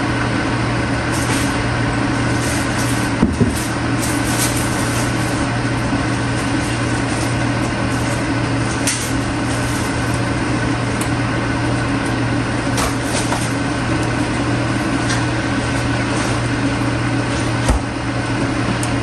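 Water boiling hard in the base of a stainless steel steamer pot, a steady rumble with a low hum under it, steaming fish in the tier above. A few light clicks come through it.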